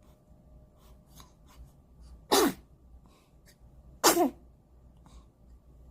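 A newborn baby sneezing twice, a little under two seconds apart; each sneeze is short and falls in pitch.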